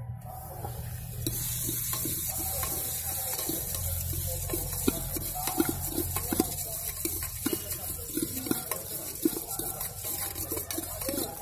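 Bhel puri mix being stirred and tossed with a spoon in a steel pot: frequent light knocks of the spoon on the metal over a steady hiss that starts about a second in.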